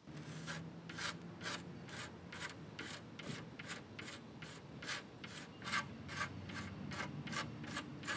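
Utility knife blade scraping dried old finish off walnut veneer in short, regular strokes, about three a second. The stripper was left on too short a time and softened only part of the finish, so the rest is being scraped off by hand.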